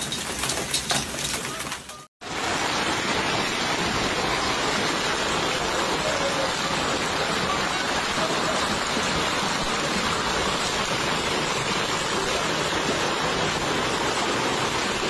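Hailstones hitting a hard surface, a dense clatter of many separate hits. After a short break about two seconds in, a steady, loud rush of heavy rain and hail falling on a street.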